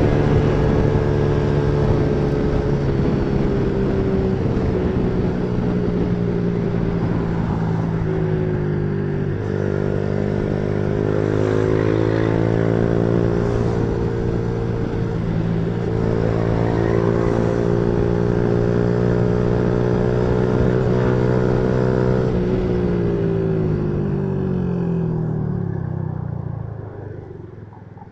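Yamaha Lagenda 115fi's single-cylinder four-stroke engine running on the move, its note dipping briefly and picking up again twice, then falling in pitch and fading over the last few seconds as the bike slows.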